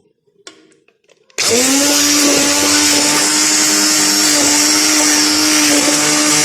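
Handheld immersion blender switching on about a second and a half in, then running steadily at one constant pitch as it purées cooked cauliflower soup with cheese. A few faint handling clicks come before it starts.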